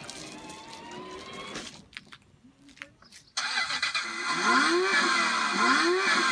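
Children's ride-on electric Mercedes GL63 toy car: a faint rising whine from its drive motors as it rolls, then after a cut about three seconds in, a much louder engine-start and revving sound effect from the car's built-in speaker, its pitch swooping up and back down twice.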